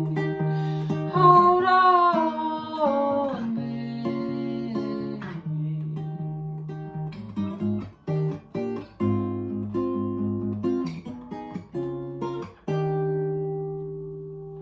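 Acoustic guitar music closing out a song: plucked and strummed notes with short pauses between them, ending on one chord left ringing and slowly fading near the end.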